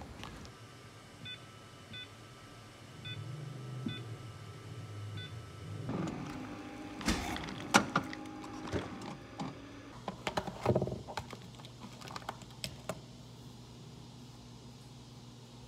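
Coffee machine giving a few short electronic beeps over a low hum, then ice and a plastic cup clinking and knocking as milk is poured into iced coffee, with a scatter of clicks; the loudest knock comes about eight seconds in.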